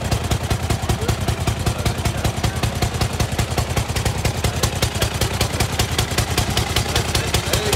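Engine of a century-old veteran car running at idle, with a rapid, even putt-putt of firing beats.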